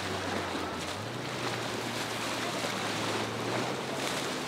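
Yamaha jet-drive sport boat motoring past, its engine a steady low drone that steps slightly higher in pitch about a second in, over the rushing of its wake and the choppy inlet water.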